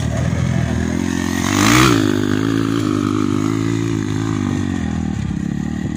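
Motocross dirt bike engine at racing revs. It is loudest as the bike passes close about two seconds in, its pitch rising then falling, and its note then carries on steadily as it rides away.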